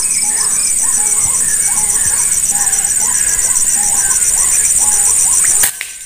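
Short rising calls of a white-breasted waterhen (ruak-ruak), repeating about twice a second over a steady high insect drone. Near the end comes one sharp air-rifle shot.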